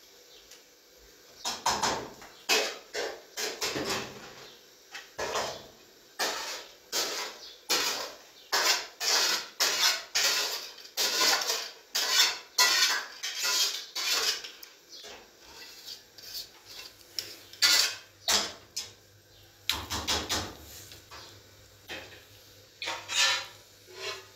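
Metal spoon scraping and clinking against steel cooking pots and a colander in a long run of short, quick strokes, as cooked rice is scooped out and moved between pots.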